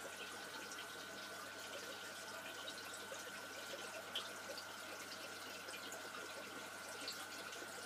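Steady trickling and splashing of aquarium water circulated by the tank's filter, with small pops and a faint steady high whine.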